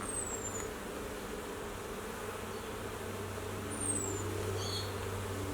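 Honeybees buzzing steadily around an opened Flow Hive, a continuous hum of many bees in flight, with a few short high chirps over it.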